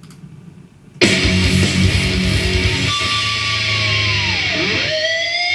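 Heavy distorted electric guitar chord with drums slamming in about a second in, played through an Earthquaker Devices Astral Destiny reverb pedal. A sustained note then dives steeply in pitch and swoops back up, settling into a held, shimmering tone.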